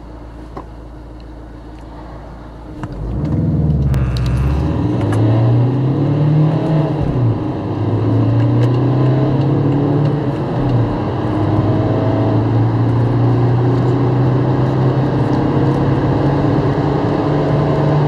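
Turbodiesel car engine idling, then accelerating hard from a standstill about three seconds in. Its pitch climbs under full throttle and falls back at gear changes, twice, before a long steady climb.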